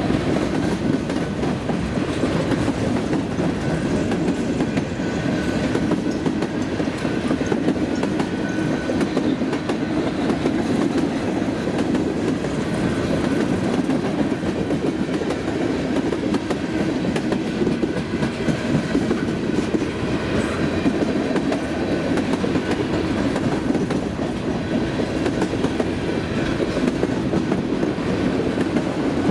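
Freight train cars, covered hoppers, tank cars and an autorack, rolling past close by with a steady rumble of wheels on rail and rapid clacking as the wheels pass over the joints.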